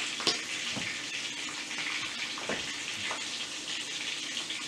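Panko-breaded string cheese sticks frying in a skillet of oil: a steady sizzle with crackling. A few short clicks of tongs against the pan come through it.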